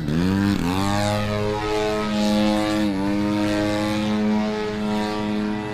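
The Desert Aircraft DA-120 twin-cylinder two-stroke engine and propeller of a giant-scale RC aerobatic plane in flight. The note climbs in pitch over the first second, then holds steady, with a brief dip about three seconds in.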